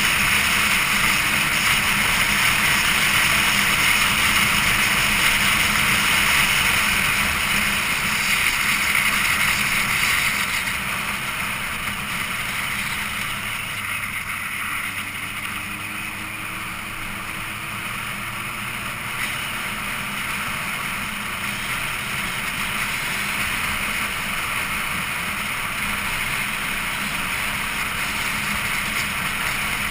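Wind rushing over an onboard camera's microphone, with a vehicle engine running steadily underneath. The wind noise eases about ten seconds in and stays lower afterwards.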